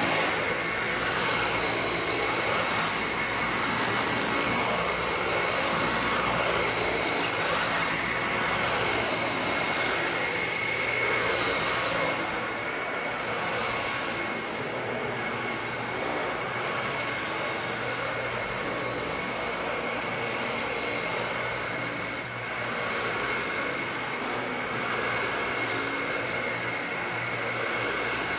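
Dyson Ball Animal upright vacuum cleaner running on carpet: a steady motor whine over the rush of suction as it is pushed across the pile.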